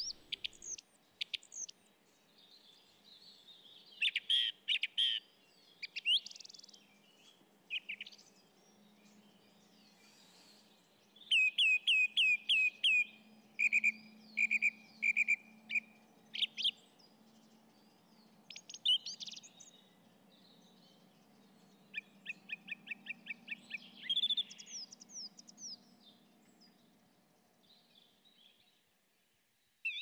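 Songbirds singing in separate short phrases of quick repeated high chirping notes, with pauses between them and a longer quiet stretch near the end.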